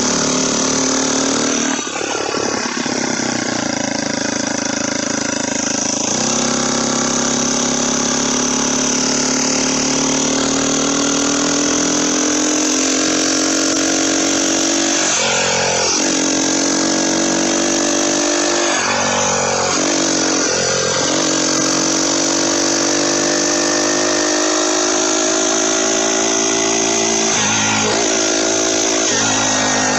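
Turbocharged motorized bicycle engine running under way, its pitch climbing slowly and dipping briefly several times as the rider eases off. A steady high whistle sits over it, the sound of the turbo spinning up on 8 psi of boost.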